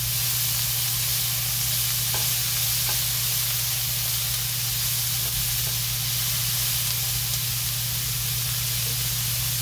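Diced onions and green peppers sizzling in hot oil in a nonstick frying pan while a silicone spatula stirs them, with a steady low hum underneath.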